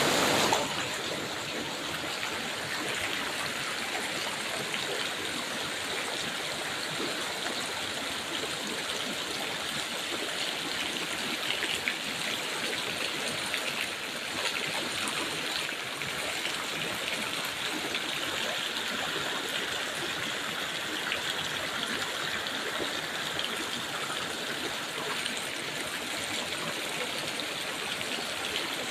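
Floodwater rushing and gurgling in a steady, continuous flow.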